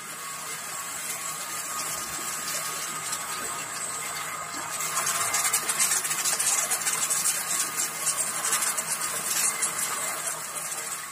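Domestic monoblock water pump running steadily with a thin whine, primed and delivering water that pours from its hose and splashes into a bucket; the splashing grows louder about five seconds in.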